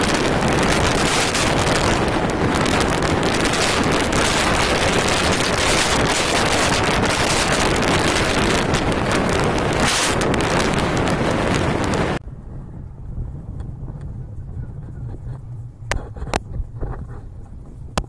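Heavy wind noise buffeting the microphone while riding at speed, cutting off suddenly about twelve seconds in to a much quieter low rumble with a few sharp clicks near the end.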